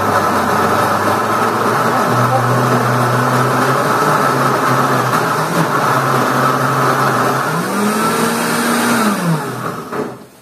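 Countertop blender running, pureeing chopped guava and tomatoes with a little water. The motor's pitch steps up about two seconds in. Near the end it rises once more, then winds down and stops.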